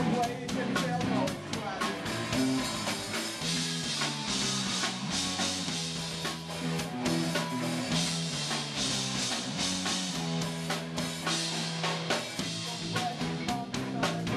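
Punk rock band playing live: electric guitar, bass and drum kit in a fast, driving song, with sustained cymbal crashes through two long stretches.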